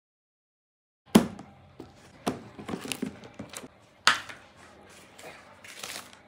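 After a second of silence, craft supplies being handled on a table: a few sharp knocks as items are picked up and set down in and around a plastic storage box, the loudest about a second in, with paper and plastic rustling between them.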